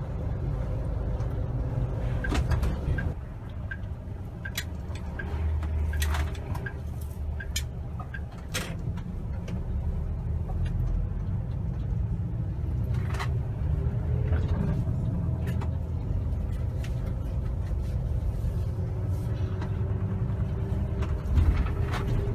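Low, steady rumble of a moving road vehicle heard from inside the cabin, with scattered light clicks and knocks.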